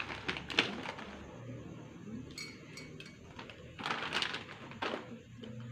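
Plastic packet rustling and crinkling in bursts as it is handled, with a brief high-pitched ring about midway.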